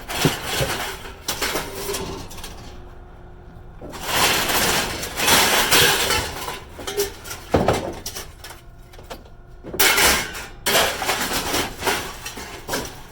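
Scrap metal being tossed and dragged onto a pile, a run of clanking, rattling crashes with a few sharp knocks.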